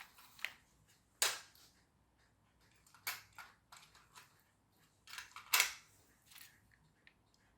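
Sharp plastic clicks and knocks from handling a small toy line-follower car. There are a few separate taps, the loudest about a second in and a cluster of them about five and a half seconds in.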